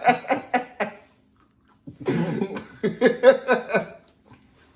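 A person laughing hard in two fits of quick rhythmic bursts, broken by a pause of about a second.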